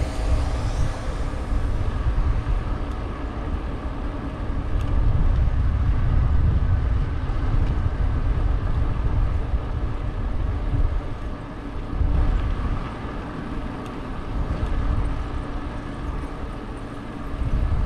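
Wind buffeting the camera microphone and tyre noise from a bicycle rolling along a paved road, swelling and easing, with a faint steady hum underneath.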